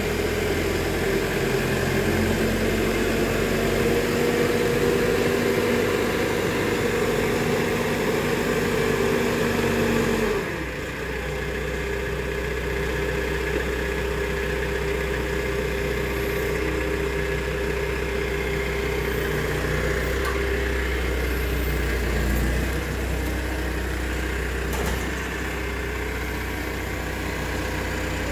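Genie GTH-5519 telehandler's diesel engine running steadily at raised revs, then about ten seconds in dropping to a lower, steadier speed and staying there.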